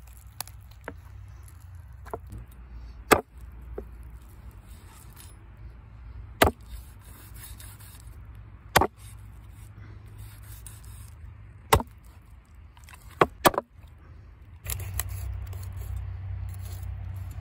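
A cleaver chopping through a stone bass on a wooden cutting board: about six sharp, separate knocks a few seconds apart, the last two close together, over a steady low background that gets louder near the end.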